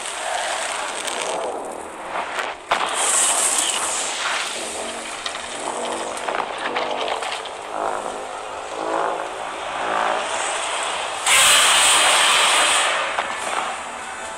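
Film sound-effects mix of a large blaze and destruction: a steady rush of fire with pitched sounds rising and falling in the middle, then a loud hissing surge about eleven seconds in.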